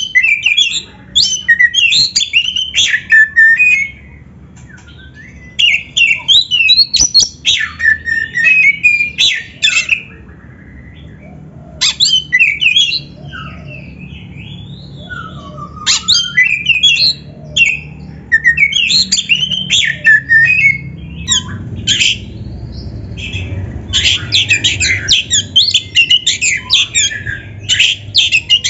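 Oriental magpie-robin (kacer) singing in full voice: loud phrases of rapid, varied whistles and scratchy notes, each a few seconds long, with short pauses between them.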